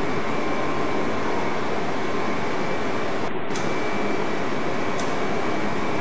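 Copper foil coating machine running: a steady mechanical hum and hiss with a faint high whine held throughout, as copper foil feeds over its rollers.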